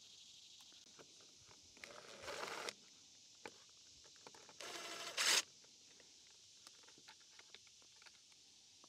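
DeWalt cordless drill-driver with a socket extension spinning off the carburetor mounting nuts: two short whirring runs about two and a half seconds apart, the second louder, with light clicks of the socket and nuts in between.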